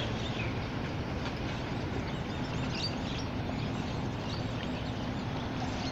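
Steady outdoor background noise by open water, with a few faint bird chirps about three seconds in and a low steady hum coming in around halfway.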